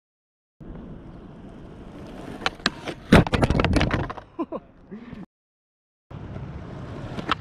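A run of sharp clacks and knocks over a steady rushing noise. The sound cuts to dead silence twice, once at the start and again a little after five seconds in.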